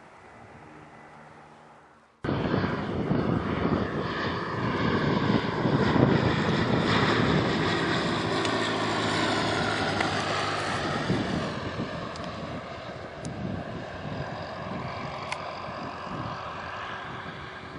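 Piston-engined propeller aircraft passing close by. It comes in abruptly about two seconds in at a cut, is loudest mid-way, then slowly fades as it moves away. Before the cut a fainter steady engine hum is heard.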